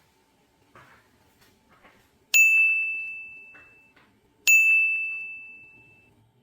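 Two clear ringing dings about two seconds apart, each a single high bell-like tone that fades out over about a second and a half, with a few faint light clicks before them.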